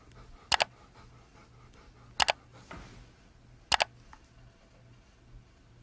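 Three camera-shutter clicks, each a quick double click, about a second and a half apart, over faint room tone.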